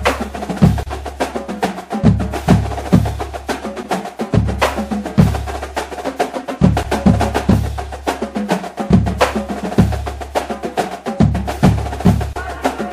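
Brass band playing: trumpets and trombones holding notes over a fast, steady beat of snare and bass drums.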